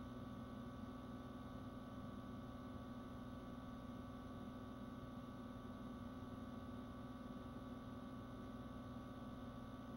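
Faint steady hum made of several held tones over a low hiss, unchanging throughout, with no other sounds.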